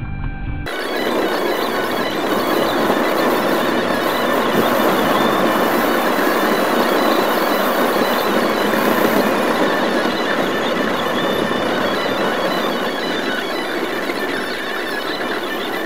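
Fast-forwarded audio of a car being towed over snow and ice, heard from inside: the tyre and body noise is sped up into a dense, high squealing hiss with no engine note. It cuts in abruptly about half a second in.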